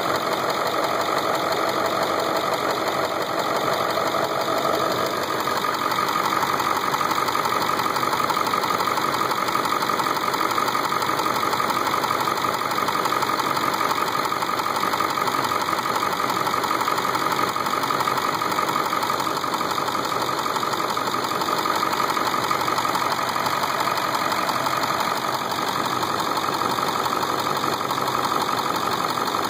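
Ford 7.3 L Power Stroke V8 turbo-diesel idling steadily with its diesel clatter. The owner first took the sound for a knock, but later found it to be the normal sound of a healthy 7.3. Its tone shifts slightly about five seconds in.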